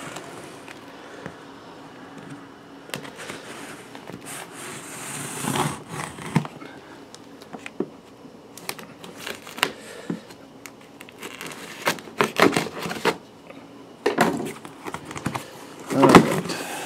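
A cardboard box being cut open and handled: cutting and scraping through the tape and cardboard, rustling, and scattered clicks and knocks, louder near the end.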